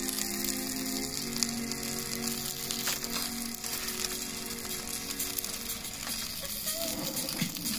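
Food sizzling over a campfire: a steady hiss dotted with fine crackles. Soft sustained music notes sit underneath for the first few seconds, then fade out.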